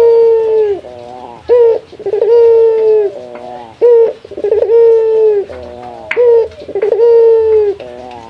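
Male ringneck dove (burung puter) cooing loudly in repeated phrases: a few quick stuttered notes, then a long held coo that drops in pitch at its end, about four times. It is a cock's calling coo, aimed at a rival.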